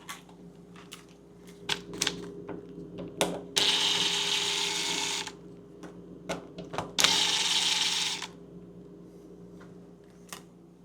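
A handheld power drill-driver runs in two short bursts, each about a second and a half long, while small metal hinge parts click and knock as they are handled.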